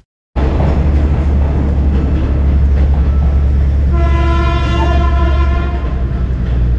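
Train running with a heavy, steady low rumble; about four seconds in, its horn blows one steady chord for about a second and a half.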